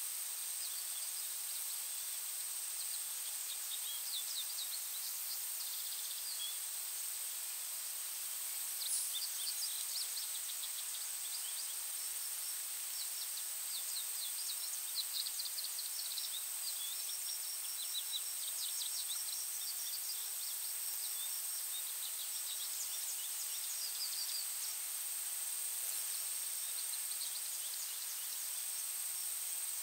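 Forest ambience: small songbirds singing in quick trills and chirps through most of the stretch, over a steady high-pitched whine and soft hiss.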